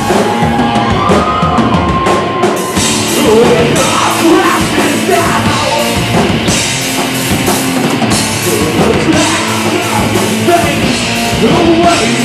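Live heavy rock band playing loudly without vocals, drum kit to the fore.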